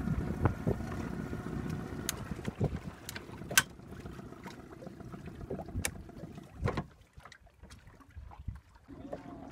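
A small boat's outboard engine running at low throttle, with wind on the microphone and a few sharp knocks. The engine hum fades about seven seconds in, then a steady low hum returns near the end.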